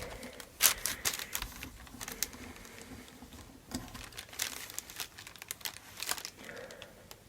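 Irregular light clicks and rustling as a small part is worked loose and handled with a screwdriver and fingers.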